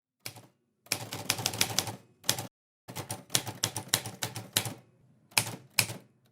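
Typewriter keys clacking in quick irregular runs, broken by short silent gaps.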